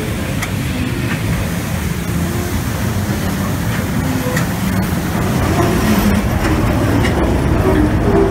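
Mine train ride cars rolling along their track: a steady low rumble with scattered faint clicks from the wheels, getting louder over the last few seconds as the train heads into a tunnel.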